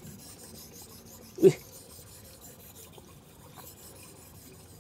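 A D2-steel knife blade stroked across a Suehiro 3000-grit Japanese whetstone: a faint, steady rasping of steel on stone. About one and a half seconds in there is one short, loud blip.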